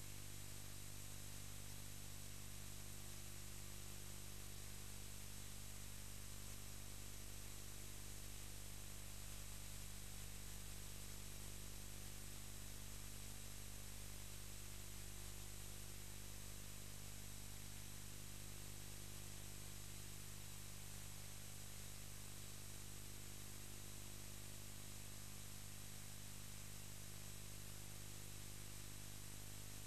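Steady hiss with a low electrical hum and no other sound, unchanging throughout: the noise floor of a soundless film transfer.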